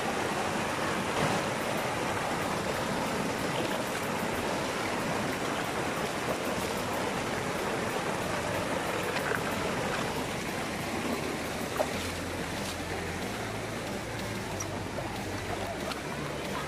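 Mountain stream rushing steadily over boulders in small white-water cascades, a little softer from about two-thirds of the way through.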